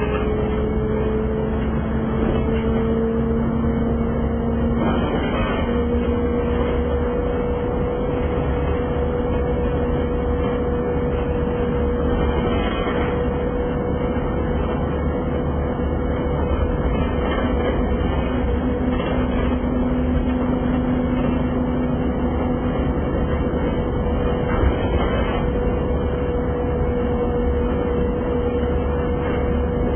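City transit bus driving, heard from inside its cabin: steady engine and road rumble with a held pitched drone that rises slightly over the first few seconds, then stays level.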